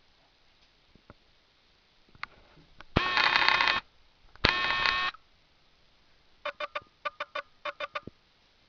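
Electronic beeping: two long, steady beeps, then a quick run of about ten short beeps.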